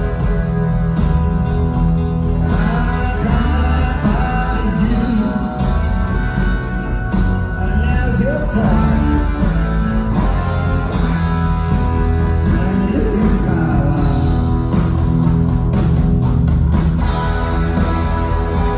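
A live blues-rock band playing: electric guitar, bass and drums, with some singing. It is an audience recording from inside a concert hall.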